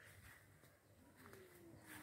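Near silence: faint garden ambience with a distant bird's low call, falling in pitch about a second in.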